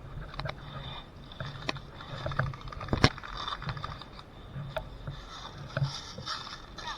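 Steady footsteps with rustling and scraping as a player moves through woodland undergrowth, with scattered small clicks and one sharp crack about three seconds in.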